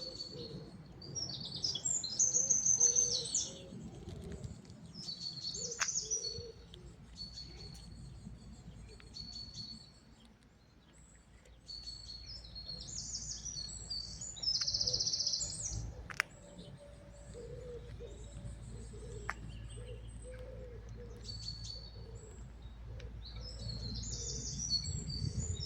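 Birds chirping and calling in short, high-pitched phrases that come again and again, with a steady low rumble underneath.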